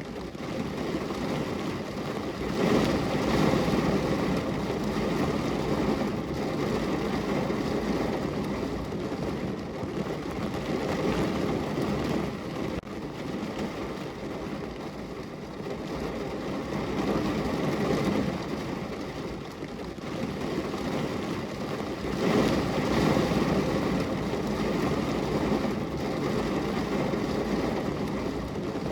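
Heavy rain falling on a car's roof and body, heard from inside the car: a dense, steady patter that swells louder twice, a few seconds in and again about three-quarters through.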